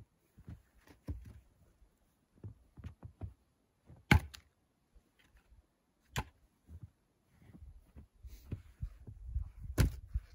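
Split pine firewood clunking as pieces are handled and set down on a pile, with footsteps crunching in deep snow between. Sharp wooden knocks come about four seconds in, about six seconds in and near the end; the first and last are loudest.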